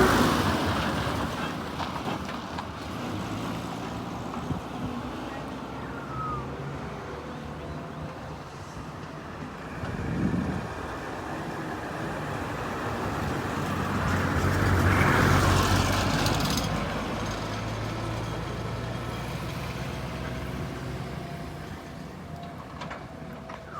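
Diesel engine of a Doosan DX225LC crawler excavator running while it digs, rising and easing with the work, with a louder swell about two-thirds of the way through.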